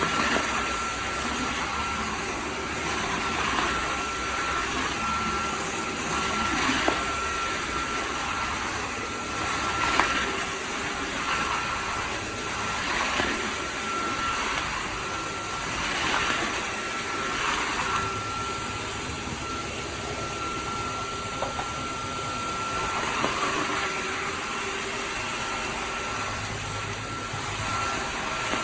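Dreame G10 Combo cordless wet-dry vacuum running, with a steady high whine over a rushing noise that swells and eases every couple of seconds.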